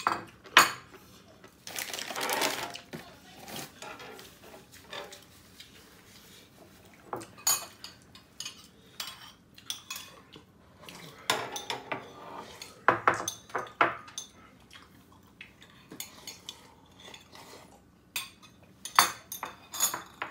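Metal tongs and utensils scraping and clinking against a nonstick electric griddle pan and ceramic bowls as noodles are served, in scattered sharp clinks with quieter stretches between.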